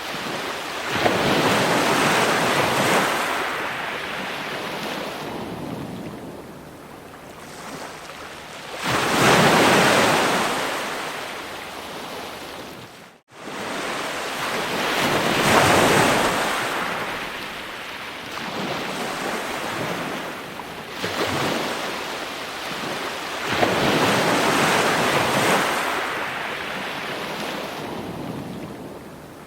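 Ocean waves breaking on a shore in slow surges that swell and wash out several seconds apart. The sound cuts out for a moment about halfway through.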